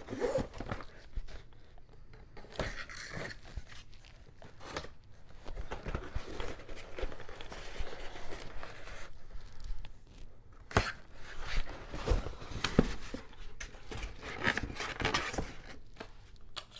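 Cardboard gun box being unpacked by hand: tape tearing and cardboard and packing rustling and scraping, with scattered knocks and one sharp click about eleven seconds in.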